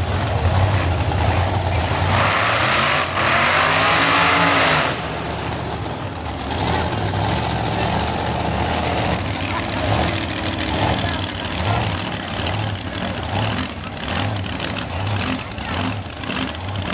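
Wheelstander drag cars' big engines running at low speed as the cars roll past. One passes close and loud about two seconds in, then fades back to a steady low rumble.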